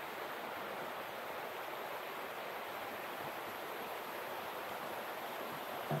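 Flowing water rushing steadily, with a single soft thump right at the end.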